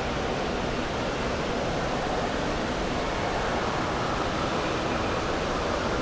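Steady wash of noise from an indoor water park hall: running and splashing water with the general din of the crowd blurred into one constant roar.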